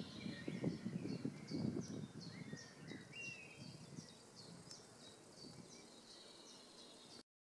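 Garden ambience: a small songbird repeating short high chirps about twice a second, with a few lower bird calls, over irregular low rustling and knocks that fade after about three seconds. The sound cuts off suddenly just before the end.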